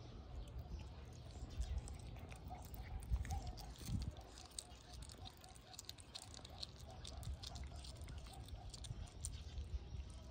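A cat chewing raw meat: a string of short clicks and smacks over a low rumble.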